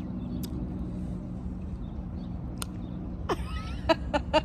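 Steady low background hum with a constant low tone, with a brief voice sound and a few clicks near the end.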